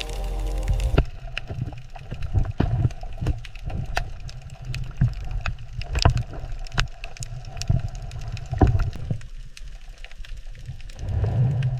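Low water rumble with irregular sharp clicks and pops.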